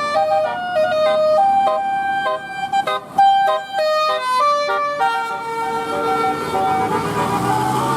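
Indonesian bus 'telolet' horn, a multi-tone musical air horn playing a quick tune of short notes that jump between pitches. About five seconds in it changes to longer held notes as engine noise rises.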